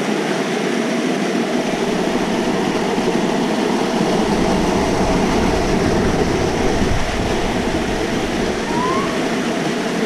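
Small waterfall cascading over rocks close by: a loud, steady rush of water, with a deeper rumble filling in a few seconds in.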